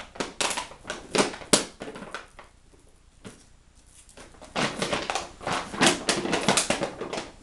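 A plastic bottle crinkling and crackling in quick runs as a dog chews it and tears off its label. About two seconds in it goes quiet for around two seconds, then the crackling starts again.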